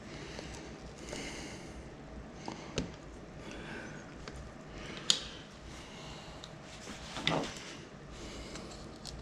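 Scattered small clicks and taps, with a brief scrape, from hand tools and parts being handled while a Surface Pro 3 tablet is taken apart. A sharp click about five seconds in is the loudest. A low steady hum sits underneath.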